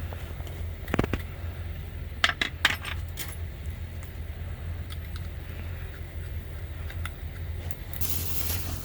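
Metal hex bolts clinking and jingling as they are handled: a click about a second in and a quick cluster of clinks around two and a half seconds, over a steady low hum. A short hiss comes near the end.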